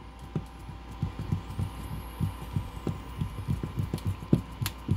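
Screw being turned by hand with a screwdriver into a plastic drywall anchor: a run of short, low thuds, about three a second, with the twists, and a few sharper clicks near the end.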